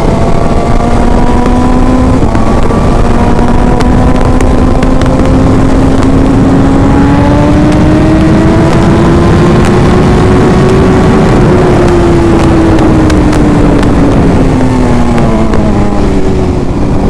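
1000cc superbike engine heard from the saddle while riding: a steady hum that slowly climbs in pitch for about ten seconds and then falls away near the end. Heavy wind rush on the microphone runs underneath.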